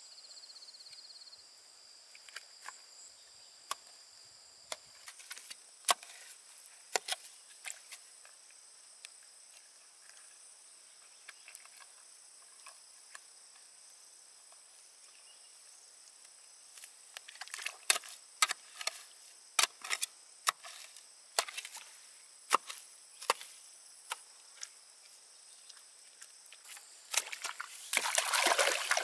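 Irregular sharp knocks of chopping, scattered at first and coming thicker in the second half, over a steady high-pitched hum; a short rush of noise near the end.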